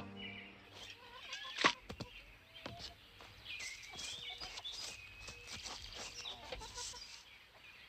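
Farmyard ambience: chickens clucking and small birds chirping in scattered short calls, with one sharper, louder sound about one and a half seconds in.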